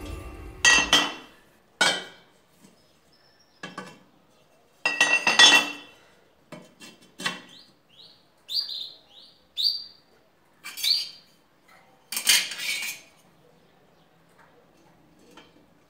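Several sharp metallic clinks and knocks with a brief ring, as a homemade magnetic welding square and a square steel tube are set against a steel post. Midway, a small bird chirps a quick run of short rising notes.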